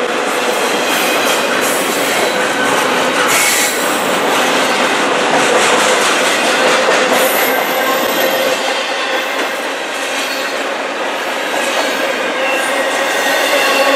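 Double-stack intermodal container well cars rolling past close by: a loud, steady clatter and rumble of steel wheels on rail, with a thin steady wheel squeal running under it.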